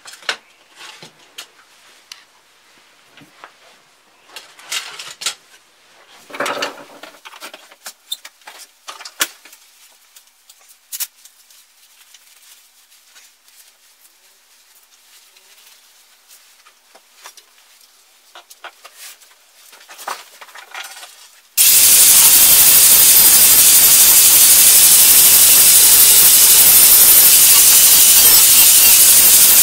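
Scattered light clicks and rattles of metal parts and straps being handled, then about 22 seconds in an electric angle grinder starts abruptly and runs steadily, loud and even, grinding the steel climbing spike clean to get it ready for welding.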